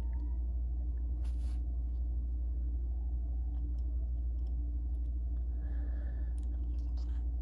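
Plastic Lego bricks clicking as they are picked from a pile and pressed together, a few scattered short clicks over a steady low hum.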